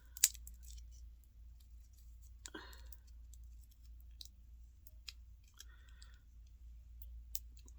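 Light clicks and taps of small plastic figure parts and packaging being handled, with one sharper click just after the start and a brief rustle about two and a half seconds in.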